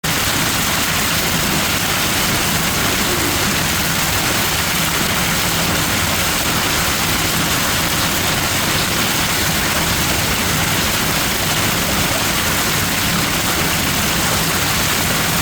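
Hail and heavy rain pounding down in a dense, steady roar, with a faint low hum underneath.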